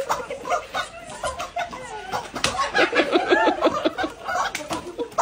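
Several women laughing and shrieking, with a string of sharp smacks.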